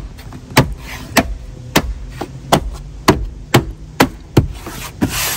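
Plastic door-sill trim panel being tapped down so its push-in clips seat in their holes: a series of sharp taps, about two a second.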